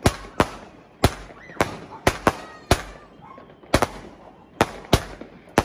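Ground-launched firework cake firing a rapid run of shots: about a dozen sharp bangs at uneven spacing, roughly two a second, each with a short crackling tail.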